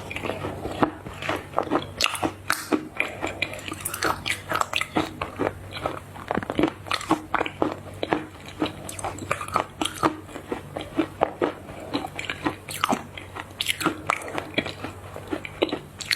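Close-miked biting and chewing of crunchy chocolate treats, with sharp crunches coming irregularly and several to the second.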